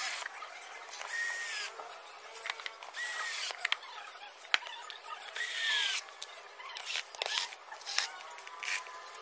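Black+Decker cordless screwdriver driving screws into a plastic air cleaner cover. There are several short whirs, each rising then dropping in pitch, with clicks of the bit and screws between them.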